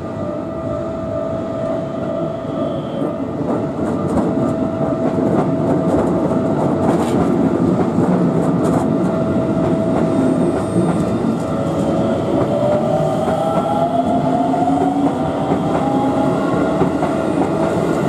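A Japanese railway crossing's warning bell rings steadily as an electric commuter train passes over the crossing, its wheels clattering on the rails. In the second half, the train's motor whine rises in pitch.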